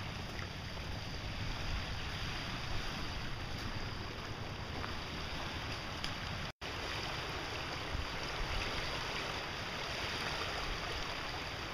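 Swollen river in spring runoff, a steady rushing of fast water over rapids and standing waves, with wind rumbling on the microphone. The sound cuts out for an instant a little past halfway.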